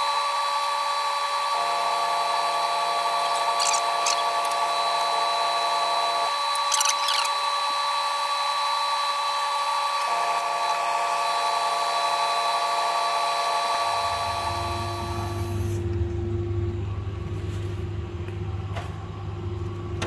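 Epilog Zing laser engraver running a test engraving job with newly fitted X-axis carriage roller bearings: its motors give a steady high whine, with a lower tone that switches on and off twice as the head's motion changes. A low hum comes in near the end.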